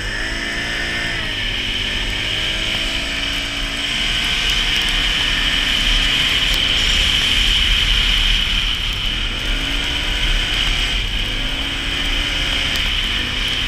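Can-Am Renegade 570 ATV's V-twin engine being ridden, its pitch rising and falling with the throttle near the start and again twice near the end. It runs over a steady rushing noise.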